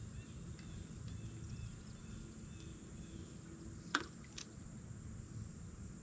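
Steady high-pitched drone of insects, crickets or similar, over a low outdoor rumble of wind and water. There is a sharp click about four seconds in and a lighter one just after.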